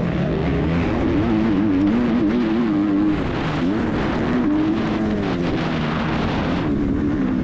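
MX2 motocross bike's engine racing, heard close-up from on board, its pitch rising and falling again and again as the rider works the throttle through the corner and up the hill.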